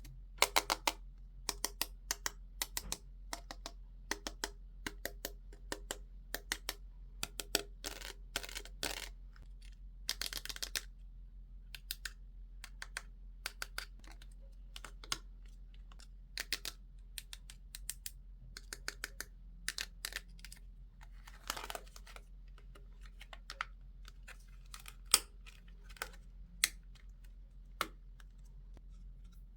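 Irregular light clicks and taps of small plastic toy pieces and packaging being handled during an unboxing, with two short rustles, one near the middle and one about two-thirds of the way through.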